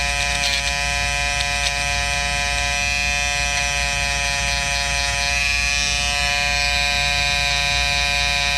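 Wahl Peanut electric trimmer running with a steady buzz as its blade is pressed into machine-embroidery satin stitches to shave the threads out. A few faint clicks come in the first two seconds.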